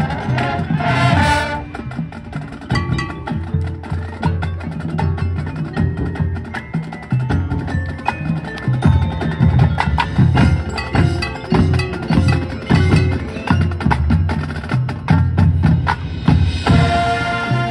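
Marching band music led by the percussion section: front-ensemble mallet keyboards such as marimba and vibraphone, with drums, playing a rapid, busy passage with a strong low end. Brighter sustained chords ring out about a second in and again near the end.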